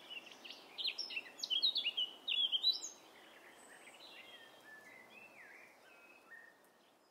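Birds chirping and whistling over a soft outdoor hiss, with a busy run of quick calls in the first three seconds, then a few fainter whistles before it fades out at the end.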